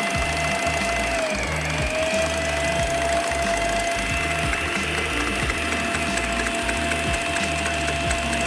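Electric stand mixer running, its balloon whisk beating egg whites in a steel bowl, with a steady motor whine whose pitch dips briefly about a second and a half in. Background music plays underneath.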